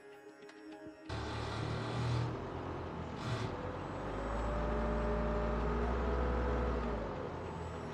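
Heavy diesel machinery cuts in about a second in and runs with a steady deep rumble.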